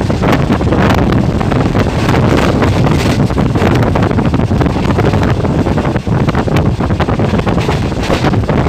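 Passenger train running at high speed, its wheels clattering on the rails with frequent short knocks, under heavy wind buffeting on the microphone.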